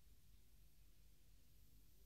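Near silence: faint tape hiss and low hum.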